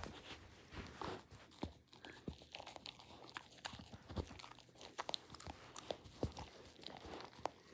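Dachshund chewing and gnawing a plush corduroy toy: irregular soft bites, small clicks and fabric rustles.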